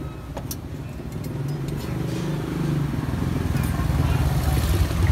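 A motorcycle engine running, with a fast, even pulse, growing louder toward the end. A sharp tap or two from a knife on a cutting board comes near the start.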